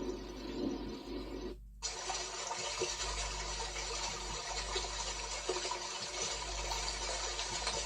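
Smart wake-up light's built-in speaker playing a steady rushing, water-like noise sound; it cuts out briefly a little under two seconds in and comes back as a different, brighter hiss as the device switches to another sound track.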